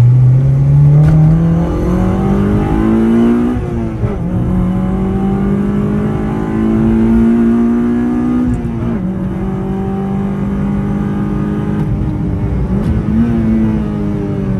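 Honda Civic Type R FD2's 2.0-litre four-cylinder i-VTEC engine pulling hard under full throttle, heard from inside the cabin: its note climbs steadily and drops sharply at upshifts about four and nine seconds in, over road and wind noise.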